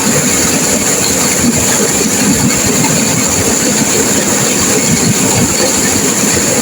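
Turbulent river water rushing and crashing over rocks in a steady, loud roar.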